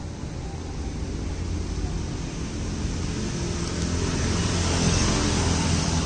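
Road traffic noise: a vehicle's low engine and tyre rumble growing steadily louder, loudest near the end.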